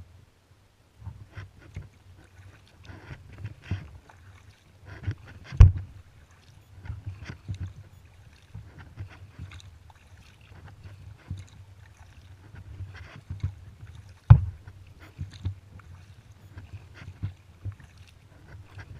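Kayak paddle strokes, with water splashing and dripping off the blades in an irregular run of small splashes. Two sharp knocks, about nine seconds apart, stand out as the loudest sounds.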